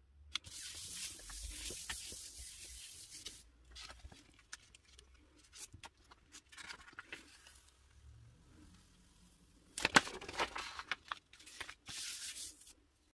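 A hand rubs a sheet of paper flat over a gel printing plate, making a dry brushing hiss for about three seconds. Soft crackles follow as the printed paper is peeled off the plate. Near ten seconds comes a loud burst of sharp paper rustles and taps, and near the end a short stretch of hand rubbing on paper.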